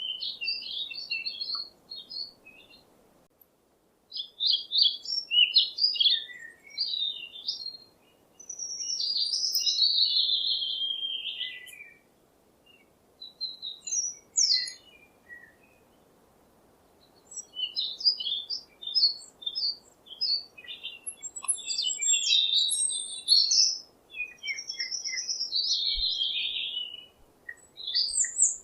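Songbirds singing: bursts of quick high chirps and warbled phrases a few seconds long, with short pauses between them, over a faint steady background hiss.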